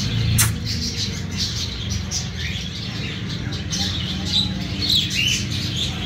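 Cockatiel chirping: a run of short high chirps with a couple of sliding whistled calls, over a steady low hum. A sharp click about half a second in.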